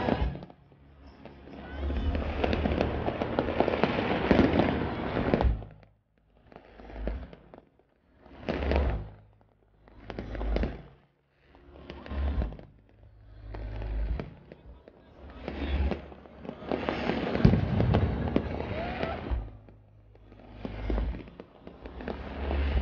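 Fireworks going off: a few seconds of dense, continuous bangs and crackle, then single booms about every two seconds, each swelling and dying away over about a second.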